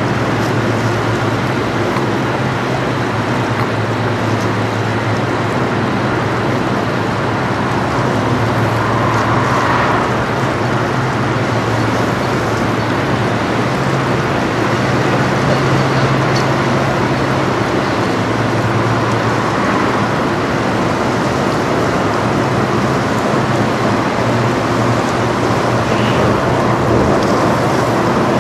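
Steady low drone from the 1,000-foot bulk freighter American Integrity passing close by, over a constant rush of water along its hull.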